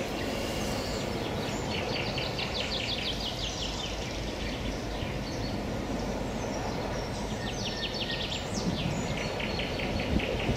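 A bird sings two long runs of fast, evenly repeated trilling notes, the second starting about halfway through, over a steady outdoor rush of background noise.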